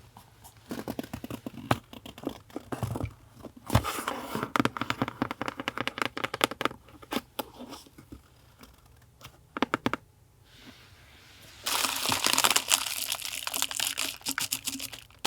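Paper and packaging crinkling and rustling as stationery is handled, in irregular crackles with a short lull, then denser, continuous rustling or tearing in the last few seconds.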